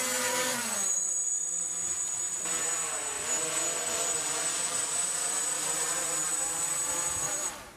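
Small Instant Eye quadcopter drone's electric motors and propellers spinning up with a quick rising whine as it is hand-launched, then a steady insect-like buzz with a thin high whine above it, its pitch wavering as it climbs. The sound cuts off shortly before the end.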